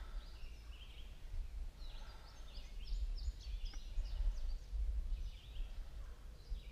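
Songbirds chirping: quick high notes that slide in pitch, coming in bursts from about a second and a half in, over a steady low rumble.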